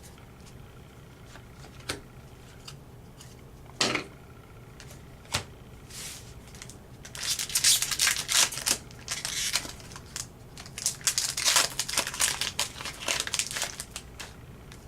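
Trading card pack wrapper being torn open and crinkled by hand, in two spells of dense crackling. Before them come a few separate light clicks.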